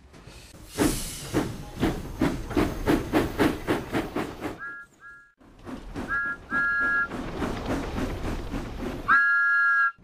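Steam locomotive chuffing in a quick, even rhythm of about four beats a second, then short two-note whistle toots, two pairs a little apart, and a longer whistle blast near the end.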